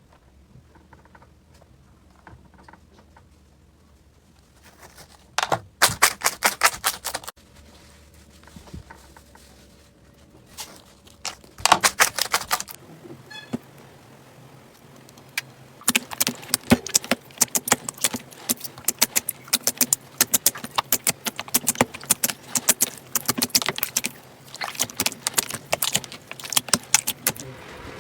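Slime being squeezed and worked by hand, giving dense crackling clicks and pops. It starts quiet, has two short bursts, then crackles almost without a break for the last twelve seconds or so.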